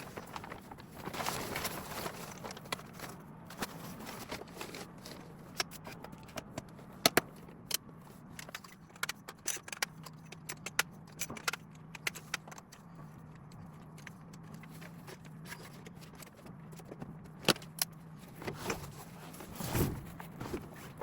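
Scattered small clicks, taps and light rattles of objects being handled, uneven in spacing, over a faint steady low hum.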